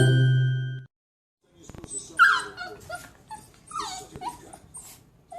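A puppy whimpering and whining: a string of short, high-pitched cries that slide down in pitch, starting about a second and a half in. A chiming musical note dies away just before.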